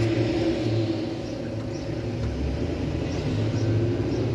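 Steady low mechanical rumble with a faint hiss of compressed air from a cylinder leak-down test on a four-cylinder engine. The air is leaking past cylinder 2 and out through the intake.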